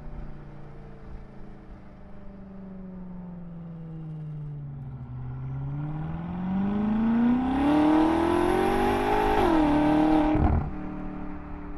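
BMW M5 F10's twin-turbo V8 through an Akrapovic Evolution titanium exhaust, the revs falling off and then climbing steadily and louder as the car accelerates from about five seconds in. About ten seconds in the note drops abruptly to a lower, steady pitch.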